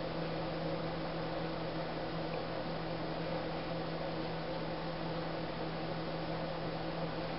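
Steady hum over an even hiss, unchanging throughout, with no distinct clicks, bites or calls standing out.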